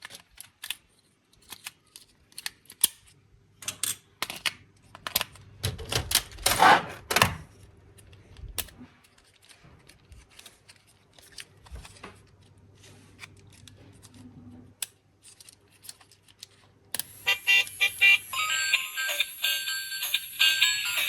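Plastic parts of a toy racing car being handled and taken apart: scattered small clicks and taps, with a louder spell of knocking and rattling about six seconds in. About seventeen seconds in, a bright electronic tune starts up.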